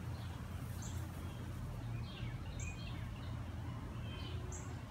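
Birds chirping in the background, a short high note repeating about every two seconds among quicker lower chirps, over a steady low hum.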